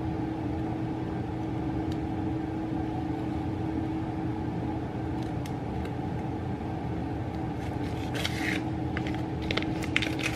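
Plastic bacon package crinkling in short bursts as it is pulled at by hand, mostly near the end, over a steady low hum with a constant tone.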